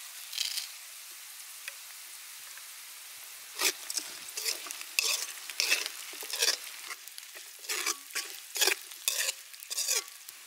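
Garlic, ginger and dried spices sizzling softly in oil in a wok. From about three and a half seconds in, a metal ladle stirs them, scraping against the wok in quick repeated strokes.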